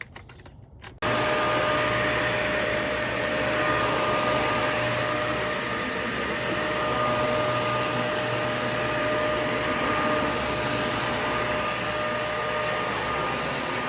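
Dyson Ball Animal 3 upright vacuum cleaner switching on about a second in and then running steadily, a rushing motor noise with a steady whine over it.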